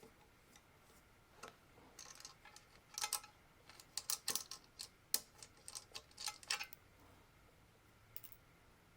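Light, irregular clicks and taps of a small screwdriver working the screws that hold a Bowflex power rod assembly to the frame, in quick clusters with a last click near the end.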